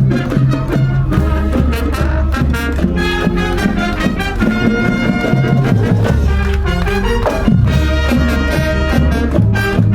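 A high school wind band playing live: brass melody over drums and a strong, steady bass line.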